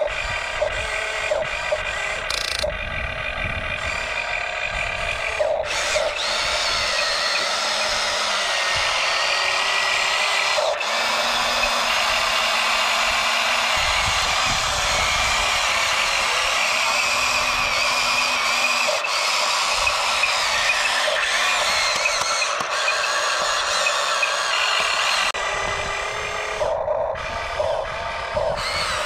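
Small electric gear motors of radio-controlled construction trucks whining as they run, with the pitch stepping up and down and a few small clicks.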